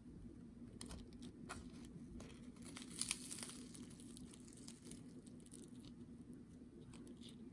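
Faint crackling of the crisp fried batter crust of a bread pakora being torn apart by hand, loudest about three seconds in, over a low steady hum.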